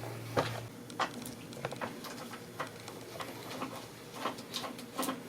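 Light, irregular clicks and taps of hand tools working on bicycle parts during assembly.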